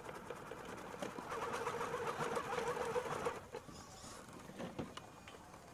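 Electric motor and gearbox of a scale RC crawler truck whining as it climbs brick steps, rising about a second in and dropping off after about three seconds, followed by a few light knocks.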